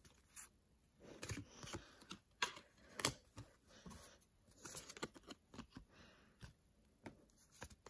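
A stack of trading cards being flipped through by hand: cards sliding off one another with soft, irregular clicks and short swishes, a couple sharper snaps a few seconds in.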